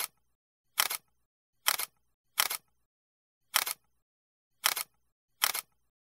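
Camera shutter clicks, about seven in a row at roughly one a second, each a quick double click, with dead silence between them.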